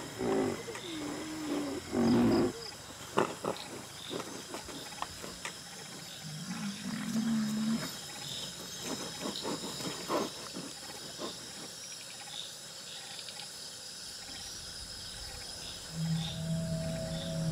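Indian rhinoceroses (greater one-horned rhino, mother and calf) calling: a few drawn-out calls that bend in pitch in the first two and a half seconds and another about six seconds in, with short sharp snorts or clicks between them. Night insects chirr steadily underneath.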